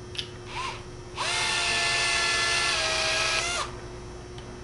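Cordless drill running for about two and a half seconds from about a second in, tightening a nut and bolt through a PVC end cap; its whine rises as it spins up and drops a little just before it stops.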